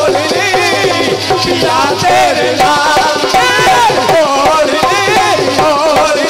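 Live Indian devotional folk music of a kirtan band. A gliding melody line plays over harmonium and steady dholak drumming with jingling percussion.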